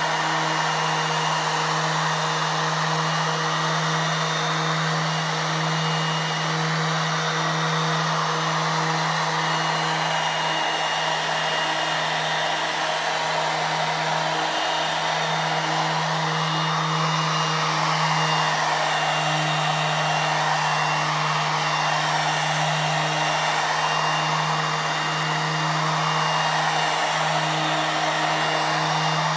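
JCB electric random orbital sander with a buffing pad, running steadily as it buffs wax into a pine table top: a constant motor hum under a rushing hiss that swells and fades in the second half as the pad is moved over the wood.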